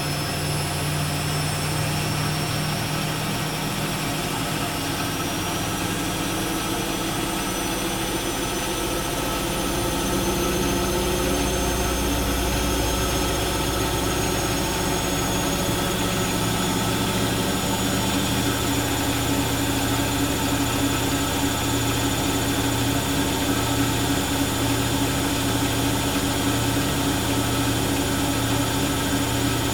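1997 Bosch WFK2801 washing machine spinning its drum in the intermediate spin before the softener rinse, its motor whining steadily, with the whine slowly climbing in pitch over the first two-thirds as the drum gathers speed.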